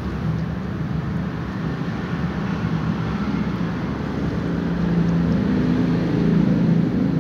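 A steady low mechanical drone with a hum, growing a little louder about five seconds in.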